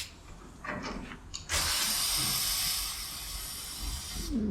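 A few small clicks, then compressed air hissing steadily out of the truck's front suspension air bags for almost three seconds as the pressure is let down from 100 psi to about 70, lowering the front end.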